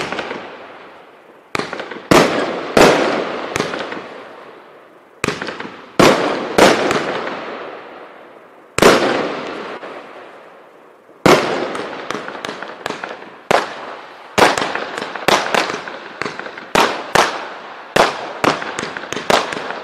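Jonathans Fireworks 'Showtime' 284-shot firework compound firing aerial shots. Each sharp burst is trailed by a fading crackle. The shots come a second or two apart at first, then in quick, overlapping succession from about halfway through.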